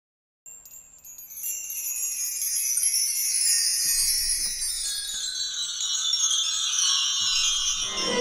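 Shimmering chimes: a cluster of small, high bell-like tones that begins about half a second in and sweeps slowly downward in pitch over several seconds, growing louder.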